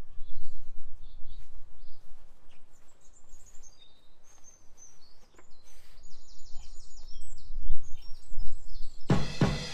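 Garden birds chirping and singing in short high phrases over a low wind rumble on the microphone. Just before the end a much louder, rhythmic sound cuts in suddenly.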